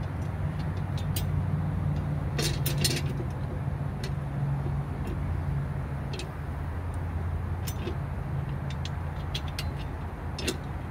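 Sharp metallic clinks and knocks of hand tools on the blade and deck underneath a tipped-over Honda push mower during a blade change, a quick cluster about two and a half seconds in and a few single ones later. Underneath runs a steady low hum.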